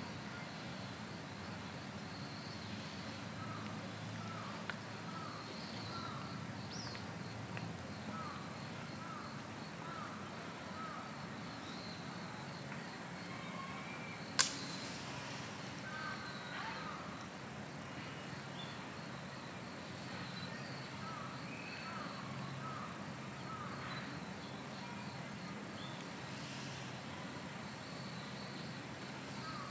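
Outdoor ambience of insects trilling in a fast steady pulse, with clusters of short repeated chirps, and one sharp snap about halfway through.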